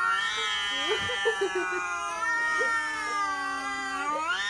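A domestic cat yowling in one long unbroken cry, its pitch sagging slightly through the middle and rising again near the end.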